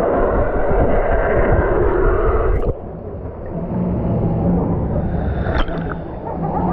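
Water rushing and churning close around the camera on a water-park river ride. It cuts off suddenly with a click under 3 seconds in, leaving quieter water noise with a steady low hum.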